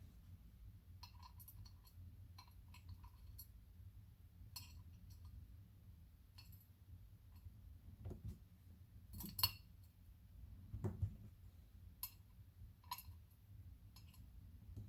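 Small metal lock parts, the pins and core of a gutted ISEO F6 padlock, clinking and ticking as they are handled, with a scatter of light taps and a sharper clink about nine seconds in.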